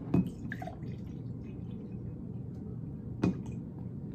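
Carbonated soda poured from a plastic bottle into a drinking glass as the glass fills, with a sharp knock about three seconds in.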